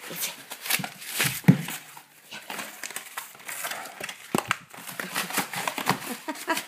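A Great Dane attacking a cardboard box: cardboard crinkling and tearing with scrabbling knocks, and heavier thumps about a second and a half in and again past the middle.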